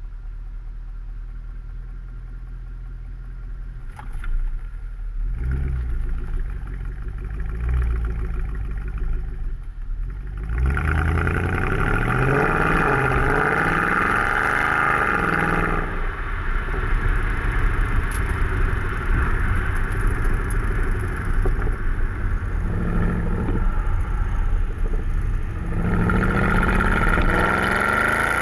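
Mercedes C63 AMG (W204) 6.2-litre V8 exhaust, running a Stage 2 map with the secondary catalysts deleted: a low rumble at first, a few short rises in revs, then from about ten seconds in a much louder run with the engine pitch climbing several times in a row, and climbing again near the end.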